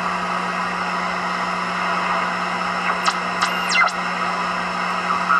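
Band noise hiss from a homebrew BITX receiver's speaker as its multi-turn tuning pot is turned, over a steady low hum. About three seconds in, whistling tones sweep steeply up and back down as the tuning passes through signals.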